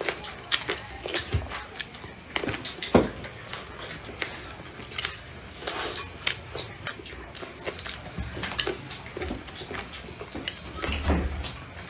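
Close-up eating sounds: chewing and wet mouth noises, with chopsticks clicking against the bowl as food is picked up. These come as many short, irregular clicks.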